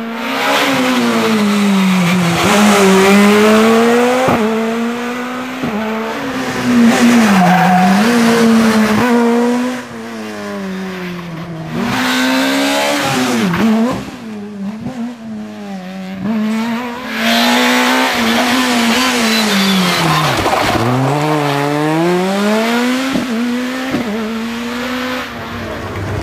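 Škoda Fabia S2000 rally car's 2.0-litre four-cylinder engine at full throttle, its pitch climbing and dropping again and again as it shifts through the gears and lifts for corners, with a few sudden drops.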